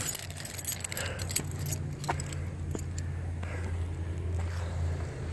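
Steady low hum of a passing vehicle or road traffic, swelling a little toward the end, with light metallic jingling and clicks over it.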